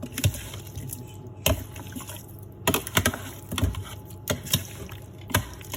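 Wet, squishy handling of raw chicken pieces in marinade, with irregular sharp clicks and knocks.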